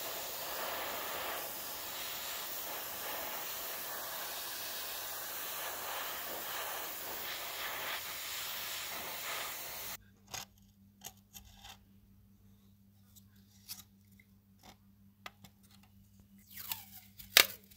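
Aerosol spray paint can hissing steadily for about ten seconds as green paint is sprayed onto small plastic parts. It then cuts to quiet handling of a roll of masking tape: small clicks and rubs, and a sharp rip of tape pulled from the roll near the end, the loudest sound.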